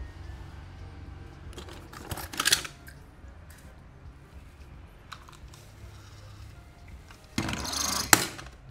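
Die-cast toy cars being handled and set down, making small clicks and clatters. Near the end there is a louder rattle, like rummaging through a box of toy cars, ending in a sharp clack.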